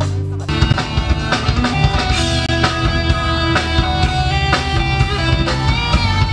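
A rock band playing live: electric guitars and bass over a drum kit. The music changes abruptly about half a second in, then guitars hold ringing notes over a steady drum beat.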